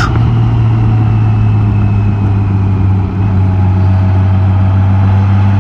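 Honda Gold Wing touring motorcycle's engine humming steadily while riding, with rushing wind noise. Its pitch drops slightly about three seconds in.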